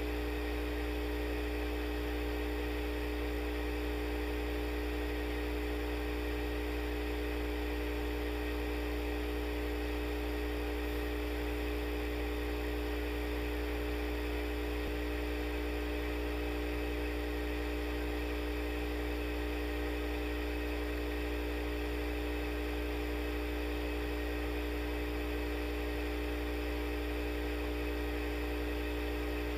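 Steady electric hum, a low drone with a cluster of higher steady tones over a faint hiss, from the shaker vibrating the silicone oil bath.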